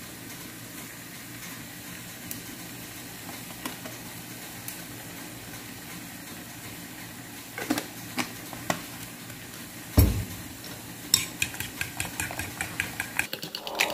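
A fork stirring egg and milk in a ceramic bowl, clicking rapidly against the bowl in the last few seconds. A few scattered clicks and one loud thump come before the stirring, about ten seconds in, over a steady low hum.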